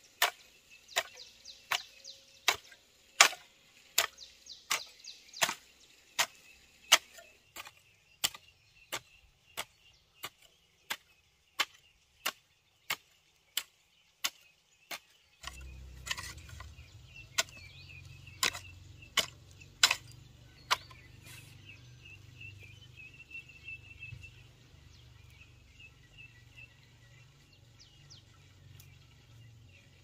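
Knife chopping on a wooden board: sharp, regular chops about one to two a second, thinning to a few strokes after about twenty seconds. A low steady hum comes in about halfway through.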